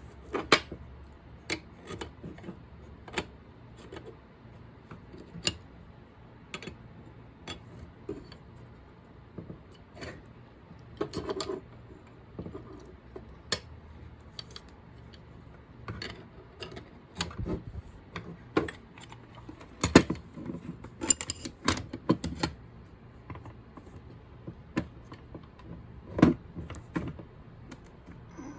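Irregular clicks and clinks of small metal and plastic spray-gun parts and hand tools being handled and fitted together, with a brief run of rapid clicks about twenty seconds in.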